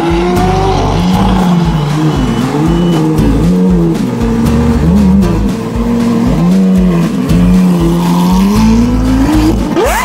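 Lamborghini engine revved in repeated blips, its pitch rising and falling again and again, with a sharp climb in pitch near the end, over background music with a heavy bass.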